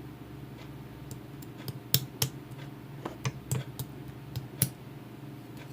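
Scattered sharp clicks and taps at an irregular pace, like typing on a keyboard, over a steady low electrical hum.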